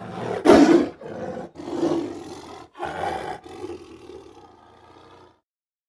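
Bengal tiger roaring: the loudest roar comes about half a second in, followed by three shorter roars with brief gaps between them, then a fading growl that stops about five seconds in.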